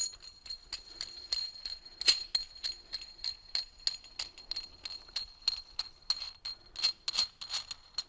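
QA1 coilover shock's threaded spring-seat collar being spun by hand down the threaded shock body: a quick, irregular run of metallic clicks, about four a second, over a steady high metallic ring.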